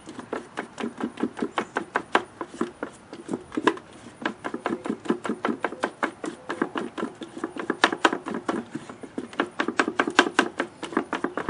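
Fiberglass resin being stirred with its hardener: a stirring stick clicking and tapping quickly against the sides of the container, several taps a second.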